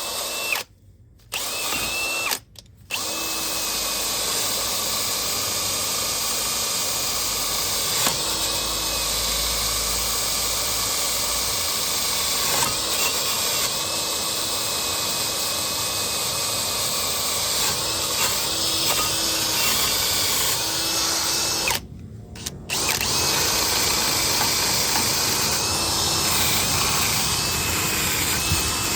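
Wire brush spinning on an electric drill, scrubbing the brake's metal surfaces clean. It runs steadily with a whining motor and stops briefly twice near the start and once about two-thirds of the way through.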